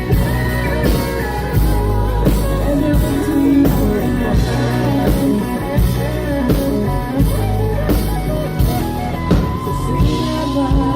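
Live country-rock band playing between sung lines of the song, with a steady drum beat.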